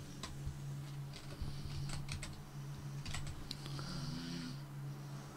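Typing on a computer keyboard: a handful of separate, irregular key clicks over a steady low hum.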